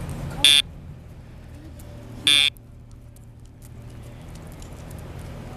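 Two short, loud electronic beeps, the second slightly longer, about two seconds apart.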